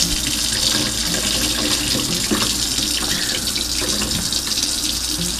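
Kitchen faucet running in a steady stream into a stainless-steel sink while a pot of rice is rinsed under it, water splashing to wash the starch off the grains.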